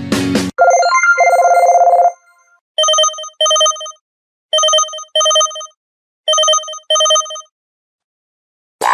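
LG KF510 mobile phone's speaker playing a ringtone: a held electronic tone for about a second and a half, then three pairs of short electronic beeps in a telephone double-ring rhythm.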